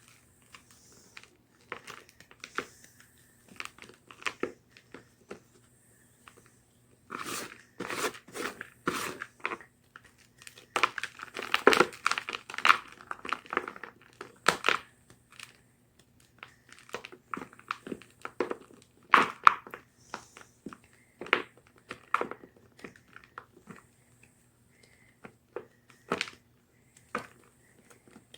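Blocks of gym chalk being crunched and crumbled, in irregular clusters of sharp crackling crunches with short pauses between them, busiest around the middle. A faint steady low hum runs underneath.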